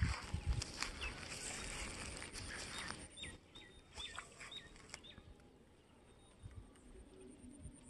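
Small birds chirping: a quick run of short, hooked calls a few seconds in, after a soft hiss.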